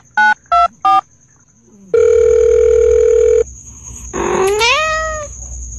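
Telephone keypad beeps, three quick ones, dubbed over a finger pressing a cat's face, then a steady phone tone about a second and a half long, then one rising meow from a cat.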